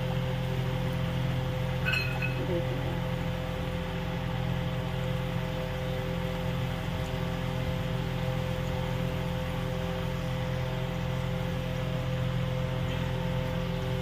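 Puris deep-frying in hot oil in a small kadhai, the oil sizzling and bubbling steadily, over a constant low mechanical hum.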